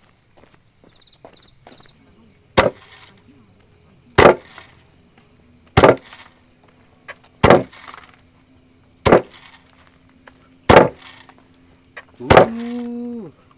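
Wooden foot-operated rice pounder working, its heavy pestle beam striking down into the mortar seven times, a thud about every one and a half seconds.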